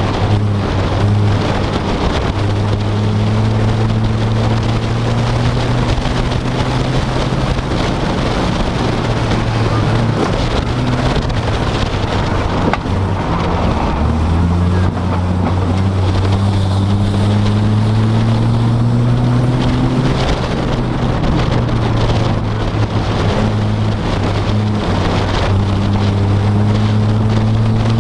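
Vehicle engine droning with road and wind noise, heard from inside the cabin while driving; the engine note rises slowly as it picks up speed and drops back twice, about halfway through and again a few seconds later, as it changes gear.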